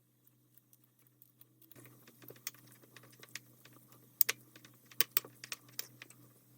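Irregular sharp clicks and taps that start nearly two seconds in and come in quick, uneven runs over a faint steady hum.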